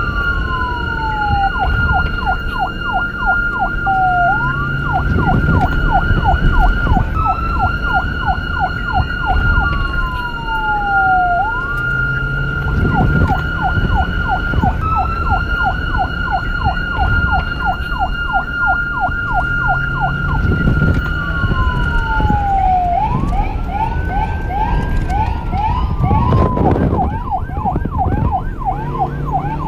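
Police car siren cycling between a fast yelp, about four rapid pitch sweeps a second, and slower falling wail glides, with one long rise and fall a few seconds before the end. It runs over a steady high tone that breaks off briefly about every seven seconds, with a low rumble underneath.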